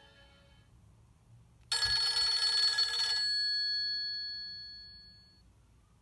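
Nokia 2700c ringtone from the phone's loudspeaker: a soft phrase fades out, then about 1.7 s in a loud, bright bell-like chord strikes for about a second and a half, with a few high tones ringing on and dying away over the next two seconds.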